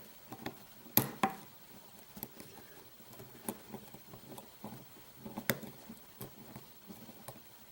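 Scattered light clicks and taps of a padlock and lock-picking tools being handled, with a sharper click about a second in and another about five and a half seconds in.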